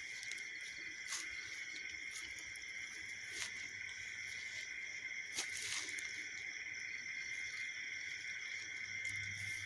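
Steady night chorus of crickets, several high unbroken trills layered together. Three sharp clicks cut through it, about one, three and a half, and five and a half seconds in.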